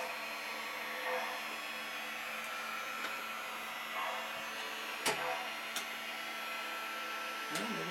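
Steady mechanical hum of Lionel O-gauge model trains running on the layout, with two light clicks about five seconds in.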